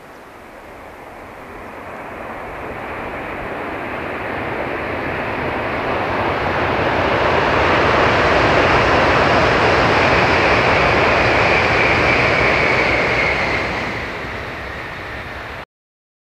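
Shinkansen bullet train passing at speed: a rushing noise that builds over several seconds, holds loud for a few seconds, then falls away and cuts off suddenly near the end.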